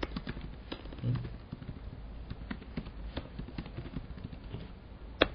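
Computer keyboard typing: scattered, irregular keystrokes, with one sharper, louder keystroke near the end.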